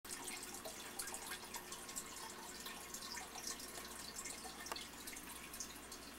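Faint steady hiss with many small, irregular clicks and crackles: camcorder handling noise and movement in a quiet room.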